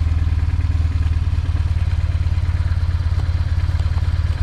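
BMW motorcycle engine idling steadily with an even, pulsing beat.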